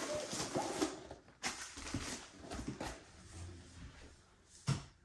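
A cardboard kit box being opened and handled, with irregular rustling, scraping and small clicks of cardboard and plastic as the rolled canvas is slid out. A single sharp knock comes near the end.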